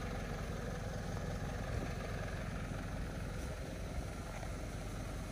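Mitsubishi Delica D:5's 2.2-litre four-cylinder diesel engine running steadily at low revs.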